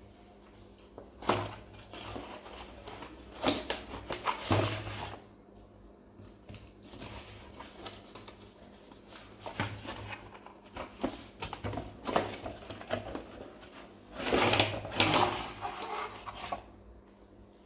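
Hands handling a toy gun and its packaging: irregular rustling and crinkling with sharp clicks and knocks, loudest near the start, the middle and a long stretch near the end.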